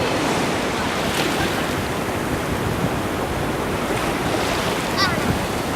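Ocean surf washing in over the shallows, a steady rushing wash with wind buffeting the microphone. A brief high-pitched call sounds near the end.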